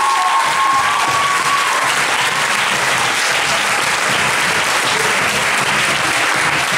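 Crowd and performers applauding steadily, a dense unbroken clapping.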